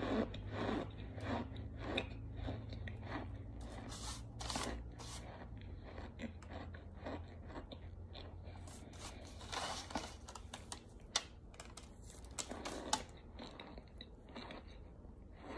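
A person chewing a bite of compressed cornstarch brick, crisp crunching strokes at about two a second that slow and thin out in the second half. The chunk is squeaky between the teeth.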